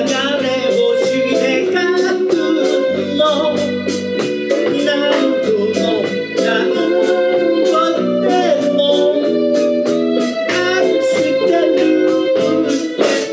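Live band music: a singer's voice carrying a melody over electric bass and other instruments, with a steady beat running throughout.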